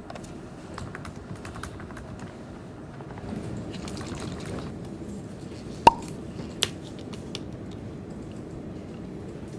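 Light scattered clicks and taps over a low background hum, with one sharp clink that rings briefly about six seconds in and a smaller click just after.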